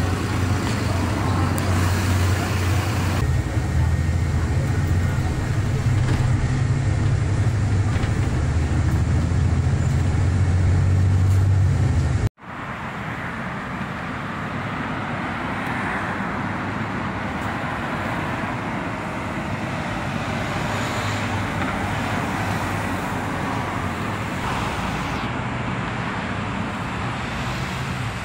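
Loud, steady deep rumble for about twelve seconds, then an abrupt cut to the steady noise of road traffic, with cars passing on a multi-lane road.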